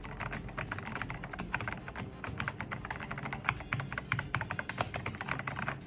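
Typing on an Attack Shark K75 gasket-mounted mechanical keyboard: a fast, continuous run of key clicks and clacks, demonstrating its typing sound.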